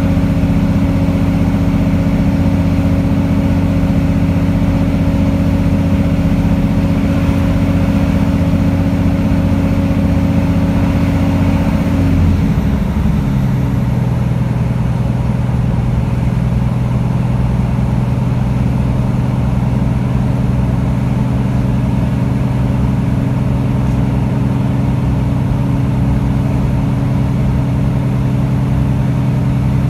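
Underfloor Cummins diesel engine of a British Rail Class 150 Sprinter running under power as the train moves, heard inside the carriage. About twelve seconds in, the engine note shifts in pitch and then settles into a new steady note.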